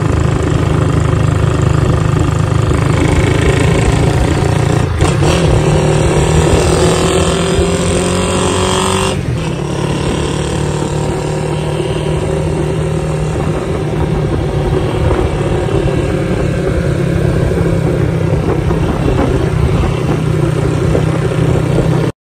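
Motorcycle engine running under way with wind rumble, its pitch rising between about four and nine seconds in as it speeds up; the sound cuts off suddenly near the end.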